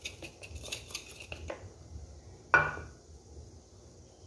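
Plastic spatula scraping powdered milk out of a plastic bowl into a plastic blender jar: a quick run of soft scratchy scrapes, then about two and a half seconds in one sharp knock with a short ring.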